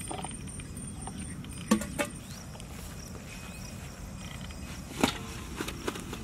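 A few short knocks and taps from cooking gear being handled, a pair about two seconds in and another cluster around five seconds in, over a steady outdoor background.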